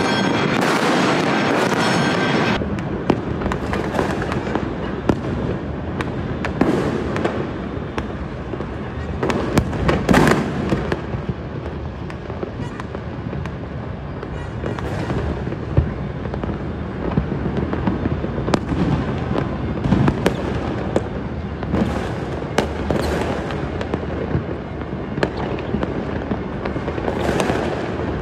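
Fireworks display going off: a constant rumble with many sharp bangs and crackles, some louder single reports standing out, beginning about two and a half seconds in.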